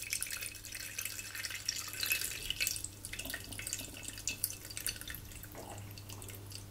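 Bottled lime juice poured from a small glass bottle into a stainless steel pot holding lime peels: a steady, splashing trickle.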